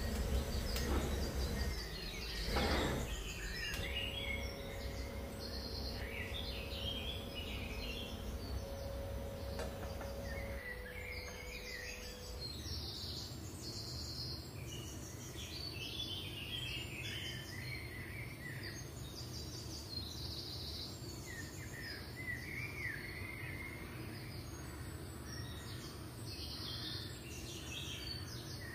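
Small birds chirping on and off over a steady low hum.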